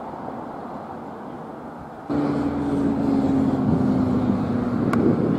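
Steady outdoor background hiss, then about two seconds in a steady engine drone of a light propeller aircraft passing over, its pitch falling slowly. Near the end a single sharp knock of a cricket bat striking the ball.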